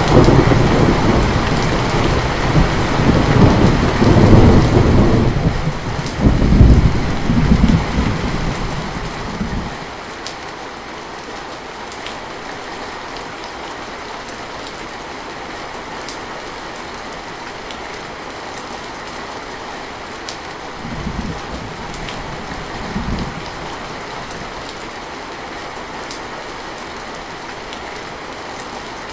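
Heavy rain falling steadily, with a long, loud rolling rumble of thunder that dies away about ten seconds in. Two brief, fainter rumbles follow about two-thirds of the way through.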